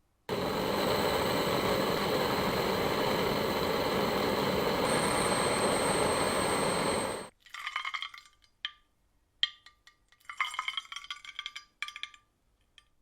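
A steady hissing machine noise with a thin high whine, which cuts off abruptly after about seven seconds. Then metal parts clink and ring several times.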